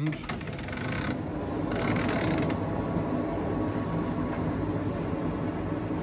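Servis Slimline Supadry 209 reverse-tumble dryer starting up as its timer dial is turned: clicks for the first couple of seconds, then its motor and drum running with a steady, even noise and a low hum.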